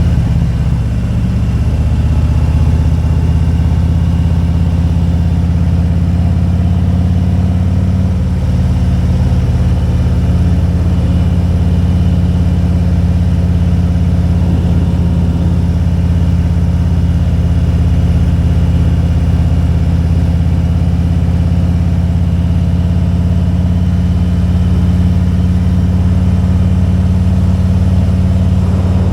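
Motorcycle engine running steadily under way, its note shifting about a second in and again about eight seconds in.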